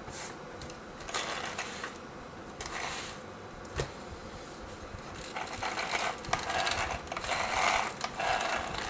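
Plastic and metal parts of a Stampede 6x6 RC truck chassis clicking and rattling as it is handled and flexed during assembly, with a sharp click about four seconds in and busier rattling in the second half.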